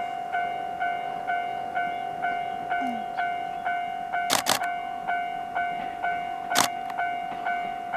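Electronic railway level-crossing alarm ringing with an even ding repeated about twice a second, warning that a KiHa 40 diesel railcar is approaching. A pair of sharp clicks comes a little past halfway and a single one later.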